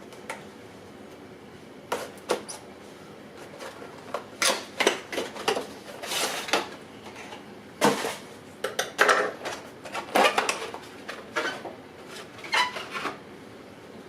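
Irregular small clicks and clattering of plastic and metal parts being handled as a Rode on-camera microphone is fitted onto a Canon T6i DSLR, busiest through the middle.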